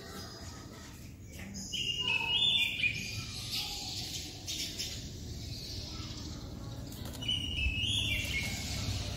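White-rumped shama (murai batu) singing in short runs of notes that step down in pitch, about two seconds in and again near the end, over a steady low rumble.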